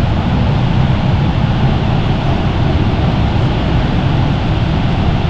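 Shoshone Falls roaring up close: a loud, steady rush of falling water with a deep rumble underneath.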